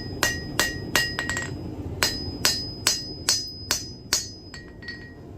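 Forging hammer striking iron stock on an anvil in steady blows, about two or three a second, each with a bright ringing note. There is a short break about a second and a half in, and lighter taps near the end.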